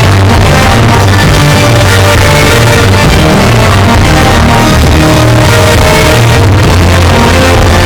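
Loud rock music with electric guitar and vocals.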